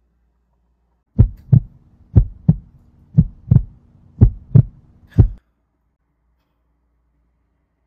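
Heartbeat sound effect: four double thumps in a lub-dub rhythm, about one beat a second, then a single last thump, over a faint steady hum. It stops about five seconds in.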